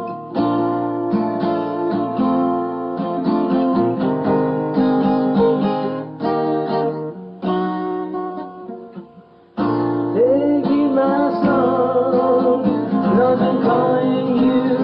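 Song with strummed acoustic guitar. The music thins out and falls away about nine seconds in, then comes back fuller with a sung melody over the guitar.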